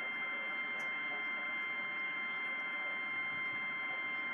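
NOAA Weather Radio warning alarm tone: one steady, unbroken high tone over radio static hiss, the signal that sounds ahead of a severe weather warning broadcast.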